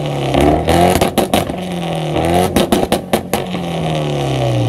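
Mitsubishi Lancer's engine being revved twice through a large aftermarket exhaust, the pitch climbing and falling back each time, with a rapid run of sharp pops near the top of each rev.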